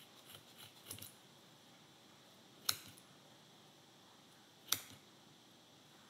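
Scissors snipping through the looped yarn of a pom-pom: two sharp snips about two seconds apart, with softer clicks of the blades in the first second.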